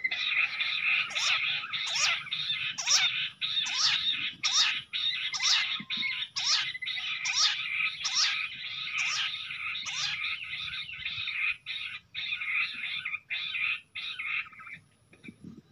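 Bush quail calling: a dense, continuous chattering with sharp whistled notes repeating about once a second, cutting off shortly before the end.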